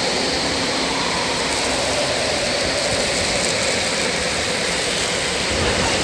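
Wind blowing steadily, a constant rushing noise with no breaks.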